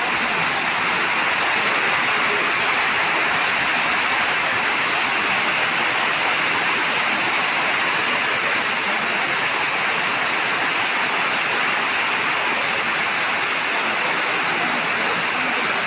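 Torrential rain pouring down in a steady, dense hiss without a break.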